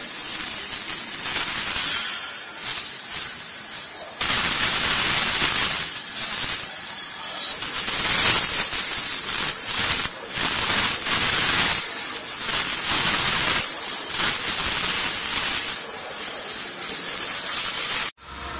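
Waterjet cutting machine's high-pressure jet cutting through a metal plate: a loud, harsh hiss of spray that swells and dips every second or two, then cuts off abruptly near the end.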